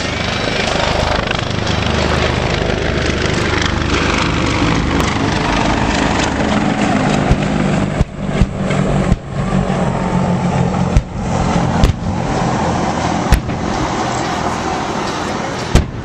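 Low-passing military helicopters running steadily, their rotors and turbines making a loud, continuous noise. From about seven seconds in, about eight sharp blasts from air-show pyrotechnic bomb explosions follow one after another, some in quick succession.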